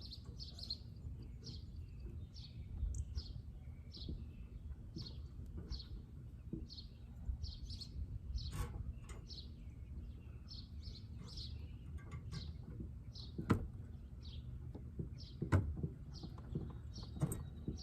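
A bird chirping over and over, short high notes about twice a second. A few sharp knocks come in with it, and there is a steady low hum.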